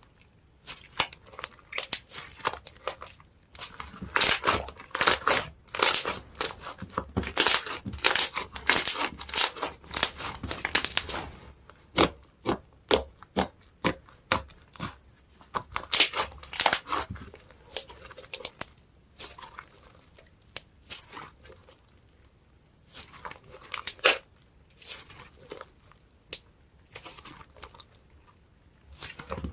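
Hands squeezing and stretching slime, giving quick crackling, popping clicks. The clicks run densely for several seconds, then thin out into scattered pops.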